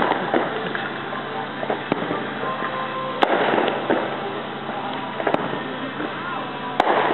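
Fireworks going off: several sharp bangs a second or two apart, with bursts of crackling in between.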